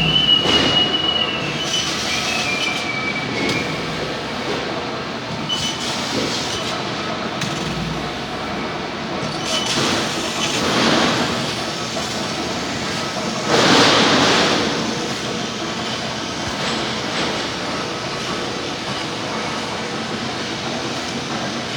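Laser cutting machine running: a steady mechanical noise with a high whine in the first few seconds and two swells of hissing, about ten and fourteen seconds in.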